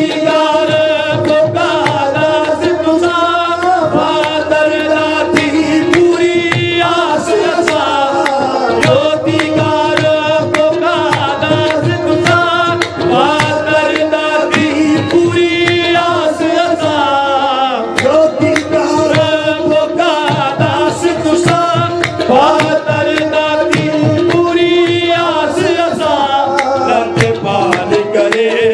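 Qawwali music: singing voices over a steady held drone note and tabla drumming.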